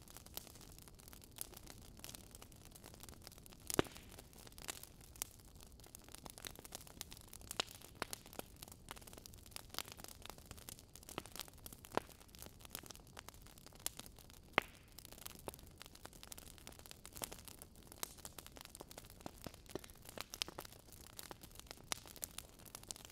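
Faint food-prep handling sounds: scattered light clicks and taps, irregular rather than a steady chopping rhythm, over a steady background hiss.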